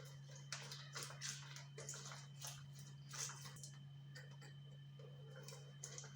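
Lemon halves being squeezed down on a hand citrus juicer: faint, irregular squelches and clicks, about two a second, over a steady low hum.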